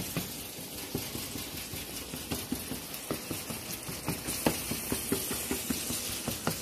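Browning ground beef being chopped and stirred in a skillet with a plastic meat chopper: quick irregular taps and scrapes against the pan, several a second, over the sizzle of frying meat.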